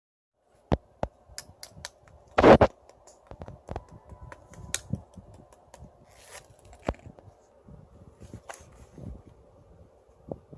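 Clay slime being pressed and poked by hand, giving a string of sharp clicks and pops, with one louder burst about two and a half seconds in. A faint steady hum runs underneath.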